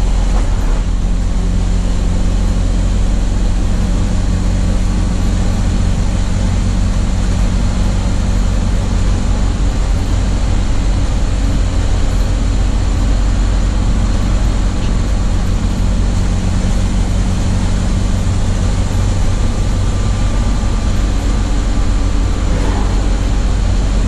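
A 1982 Chevy Blue Bird school bus's 366 V8 engine drones steadily at highway cruising speed, heard from the driver's seat, over steady road and wind noise.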